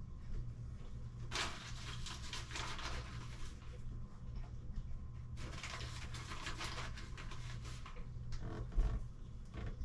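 Handling noise from hands-on tile work: two spells of rustling and scraping, about two seconds each, then a thump near the end, over a steady low hum.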